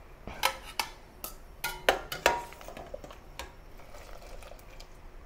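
Stainless steel skimmer clinking against a steel pot and bowl while blanched broccoli is scooped out of the water and tipped into the bowl. The irregular clinks and knocks, some briefly ringing, come in the first three and a half seconds, then it goes quieter.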